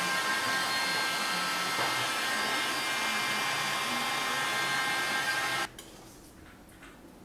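Handheld hot-air dryer blowing on a wet copper etching plate to dry it: a steady rush of air with a few steady whining tones from the motor. It stops abruptly about five and a half seconds in.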